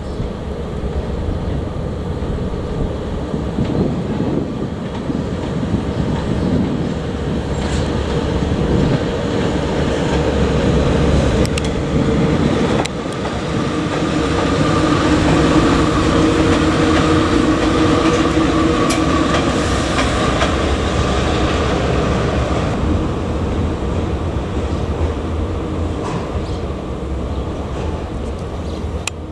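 VL10 two-section DC electric locomotive passing slowly on shunting moves: a steady rumble and hum that builds to its loudest about halfway through and then fades, with a few sharp clicks from the wheels on the rails.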